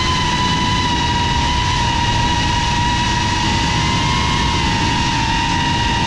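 FPV quadcopter's brushless motors and propellers whining at a fairly steady pitch over a low rushing noise, heard from the onboard camera.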